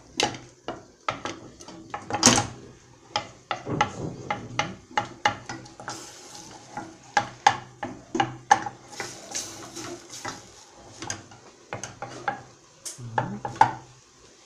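Wooden spoon stirring melting butter in a stainless steel saucepan, knocking and scraping against the pan in quick, irregular taps, several a second.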